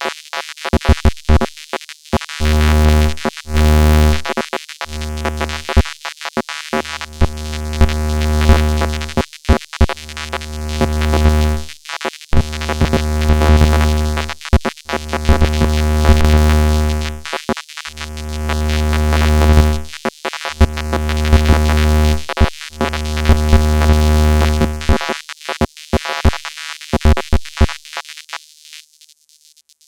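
Synthesized robotic sci-fi sound effect: a low buzzing electronic drone that swells up and cuts off again and again, each swell lasting a second or two. Rapid clicks and blips come before and after, and it fades out near the end.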